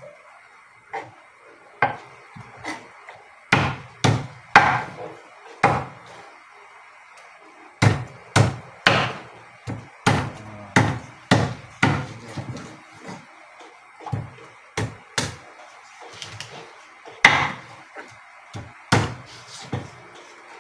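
A large kitchen knife chopping raw chicken on a wooden chopping board: sharp, uneven knocks of the blade into the board, about one to two a second, in short runs with brief pauses.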